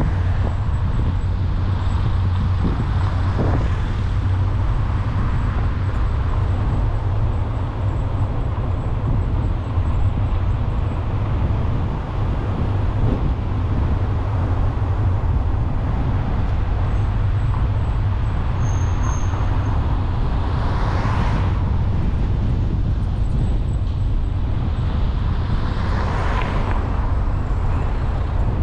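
Steady low rumble of a car being driven, tyre and engine noise, with two whooshes of passing vehicles that swell and fade, about three-quarters of the way in and again near the end.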